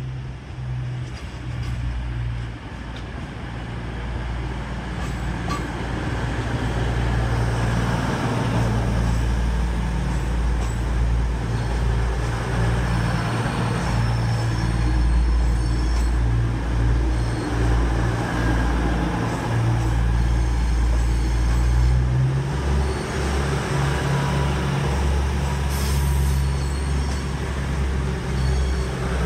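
Class 222 Meridian diesel multiple unit running slowly past, with a steady low drone from its underfloor engines that grows louder over the first several seconds and then holds.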